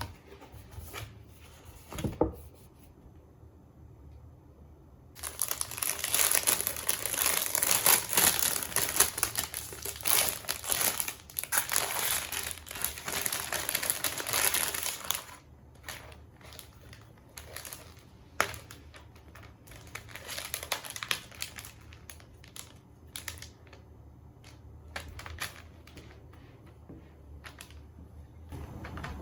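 Packaging being handled: a dense crinkling and rustling for about ten seconds, then scattered lighter crinkles and clicks.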